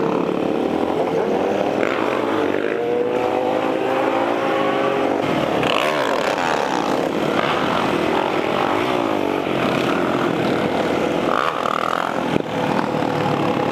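Several motorcycle and dirt bike engines running together, their pitch rising and falling as the riders work the throttles, with one bike's engine close by.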